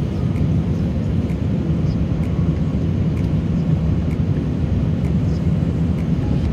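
Steady cabin drone of an Airbus A380-800 in flight, heard from a window seat: engine noise and airflow as a constant low rumble with a steady hum.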